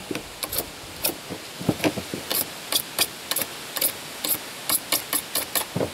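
A blade scraping sticker adhesive off a PVC pipe in quick short strokes, about three scrapes a second.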